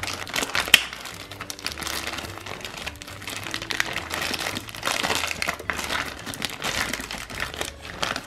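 Small plastic sand molds being handled, irregular rustling and handling noise with a sharp plastic click a little under a second in.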